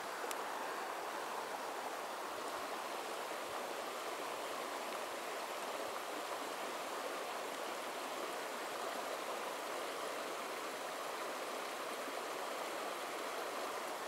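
Shallow, rocky mountain creek flowing over stones: a steady, even rush of running water.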